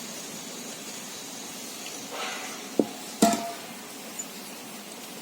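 Hard objects knocking together: a light click, then a sharp metallic clink about three seconds in that rings briefly, over a steady low hiss.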